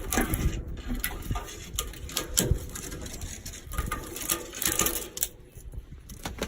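Wind buffeting the microphone in gusts, with many irregular crackles and sharp clicks of dry sticks and bark.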